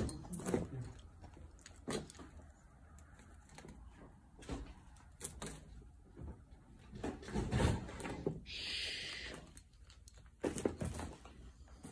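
Footsteps crunching over debris-strewn floor, with scattered clicks and knocks of papers and broken ceiling tiles underfoot, a louder thump past halfway and a short hiss about two-thirds through.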